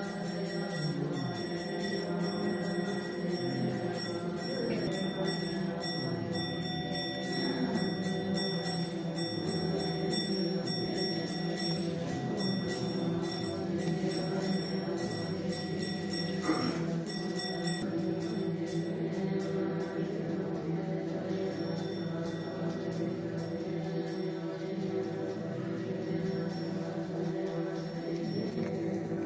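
Background music with long sustained tones at a steady level.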